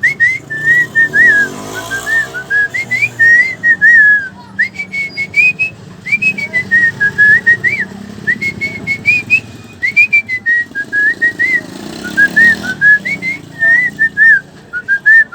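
A boy whistling an imitation of birdsong: a fast, warbling run of short rising and falling chirps in phrases, with brief breaks.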